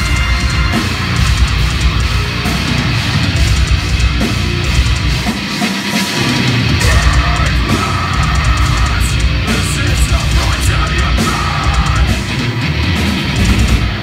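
Metalcore band playing live, with heavy distorted guitars and drums, loud. About six seconds in the low end drops out briefly, then the full band comes back in.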